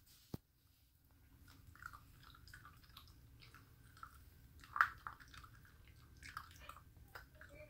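Puppy chewing a raw, mallet-crushed bone-in chicken wing: faint, irregular wet chewing with small crunches of bone. It starts after about a second, and the loudest crunch comes a little under five seconds in.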